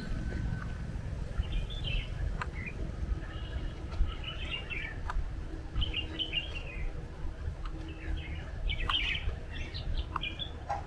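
Small birds chirping in short twittering phrases that come again every second or two, over a steady low rumble, with a few faint clicks.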